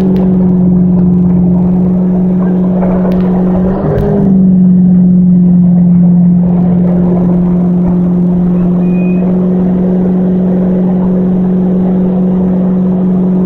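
Inboard engine of a Nautique ski boat running under way at steady speed, a constant drone that briefly rises in pitch and loudness about four seconds in, with wind rushing over the microphone.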